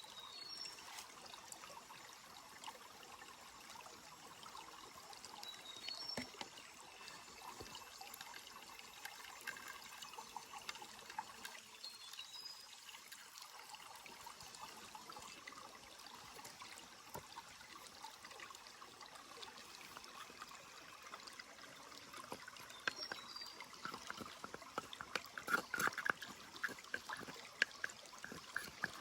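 Stream trickling and gurgling in a steady, fairly quiet wash, with a few short high chirps now and then and a run of sharp crackles near the end.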